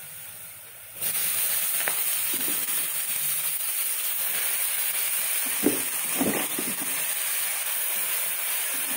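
Hot oil and fried onions sizzling as handfuls of chopped greens go into the pot, the hiss starting suddenly about a second in and holding steady, with a few short rustles of leaves being pressed down.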